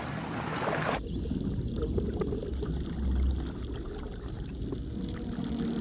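Surface water lapping for about a second, then underwater sound: a low bubbly rumble, loudest around three seconds, with faint high dolphin whistles, one gliding down in pitch about four seconds in.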